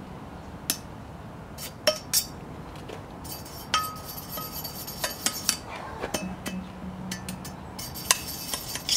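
Wire brush scrubbing loosened paint off the metal legs of a BMX fork: scratchy scraping, broken by irregular sharp clinks where the brush knocks the tubes, some of them ringing briefly.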